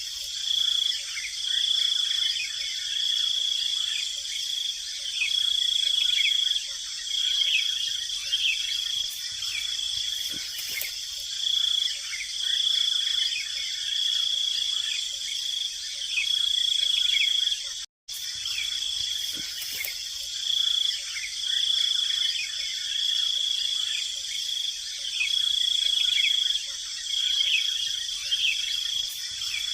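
A forest insect chorus: a high, steady buzz that swells and fades every second or two, with short, falling chirp-like notes repeating beneath it. The sound drops out for a moment about two-thirds of the way through.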